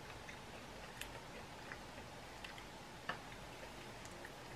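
Faint chewing of a crunchy chocolate-covered wafer cookie: a few scattered crisp crackles, the loudest about three seconds in.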